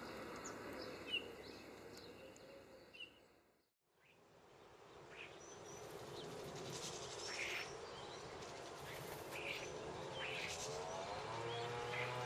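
Greenfinch calls: short chirps repeating at first, fading out to silence a little over three seconds in. Then a new stretch of scattered twittering calls over steady outdoor background noise, with a low wavering tone near the end.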